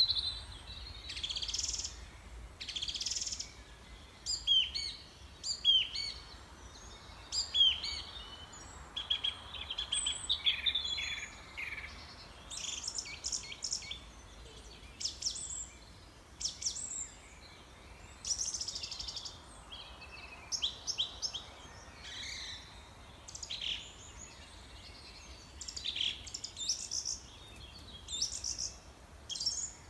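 Small songbirds chirping and singing, many short high calls in quick succession, some sweeping down in pitch, with a brief trill about ten seconds in.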